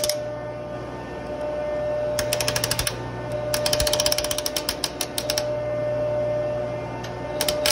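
Cordless impact wrench hammering in short bursts as it runs a nut down on a pipe flange bolt. There is a burst of under a second about two seconds in, a longer burst of nearly two seconds around four seconds in, and a brief one at the very end.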